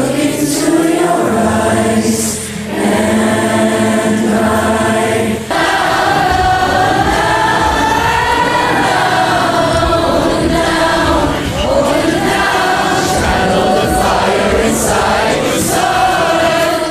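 A group of voices singing together like a choir, holding long notes that waver in pitch.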